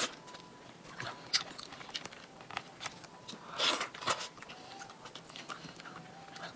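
Wet mouth sounds of someone eating soft durian flesh: scattered lip smacks and clicks, with a denser cluster of louder ones about three and a half seconds in.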